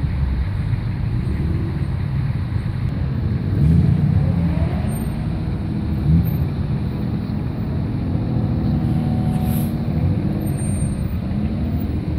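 A procession of cars driving past one after another, their engines and exhausts running with a steady low rumble that rises and falls in pitch as each car goes by, with tyre noise on the wet road.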